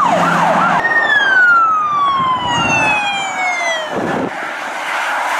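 Police car siren sounding a fast yelp, then one long wail falling in pitch over about three seconds, over road noise.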